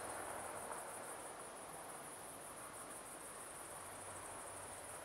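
Crickets chirring steadily at a high pitch in the background, faint and continuous.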